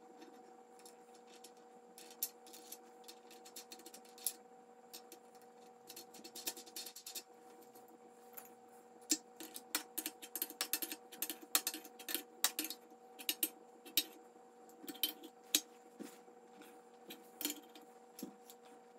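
Adjustable wrench clinking against the nut and threaded steel lift pin as the nut is tightened: a long run of light metal clicks and taps, over a steady faint hum.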